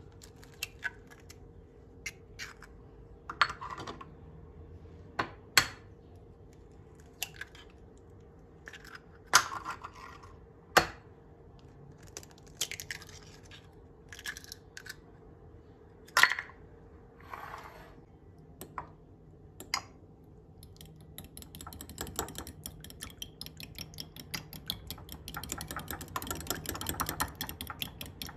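Eggs being tapped and cracked on the rim of a glass bowl: a series of sharp knocks and shell crackles. From about three-quarters of the way in, a metal fork beating the eggs in the small glass bowl, a fast steady clinking of metal on glass.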